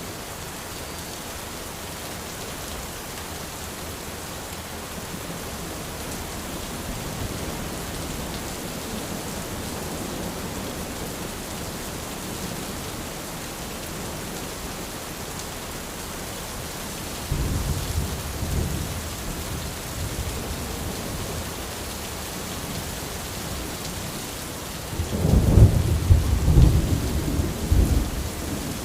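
Steady rain falling on an umbrella, with thunder rumbling twice: a first roll about two-thirds of the way through and a louder, longer one near the end.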